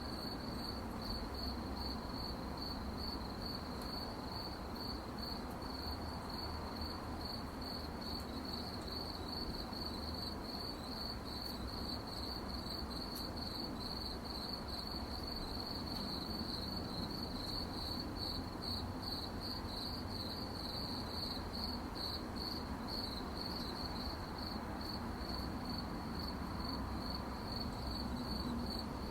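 Crickets chirping at night in a steady, even rhythm of several high-pitched chirps a second, over a faint low background hum.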